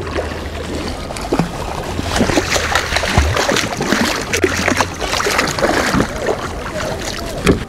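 A hooked small white seabass thrashing at the surface beside a kayak, throwing up a run of splashes that ends with one loudest splash, over a low steady hum.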